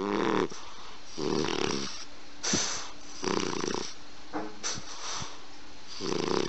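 English bulldog snoring in its sleep: four low snores, a second or two apart, with an airy breath between each.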